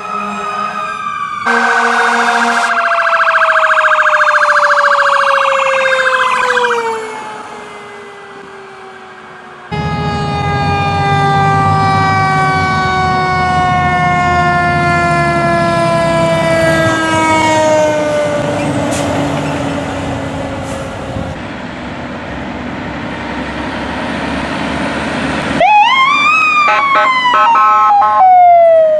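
Fire engine sirens in several short scenes: a rapid warbling siren over a slowly falling wail, then a long wail winding down in pitch over a truck engine's rumble, and near the end a siren that spins up sharply and starts to fall again.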